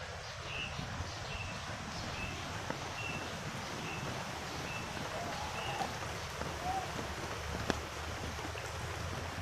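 Rural outdoor ambience after rain: a steady rushing hiss with low rumbling underneath, and a short high chirp repeated about once a second that stops about six seconds in.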